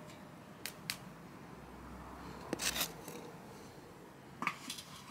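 Fired clay spindle whorls clinking as they are set down on brick paving: two small ticks under a second in, a louder cluster of clinks around two and a half seconds in, and a few more near the end.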